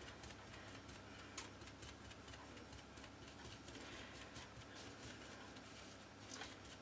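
Faint, quick, irregular tapping of a foam paint dabber pressing chalky paint onto a glass bottle.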